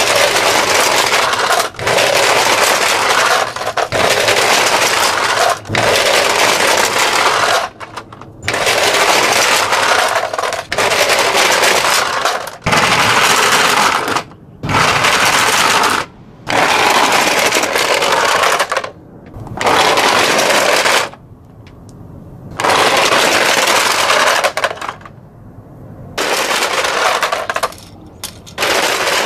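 Hot Wheels die-cast monster trucks clattering down a plastic playset track, heard as a series of loud rattling runs, each a second or two long and cut off abruptly.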